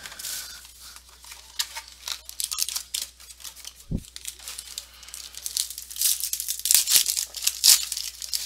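Plastic wrapping on a trading-card box being torn open and crinkled, in many short crackles that grow busiest near the end. There is a single low thump about four seconds in.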